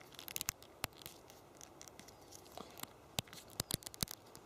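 Faint, irregular crackles, scratches and small clicks of a pine-root binding being handled and pulled tight into the overhand knot that locks it off, with a quick cluster of clicks near the end.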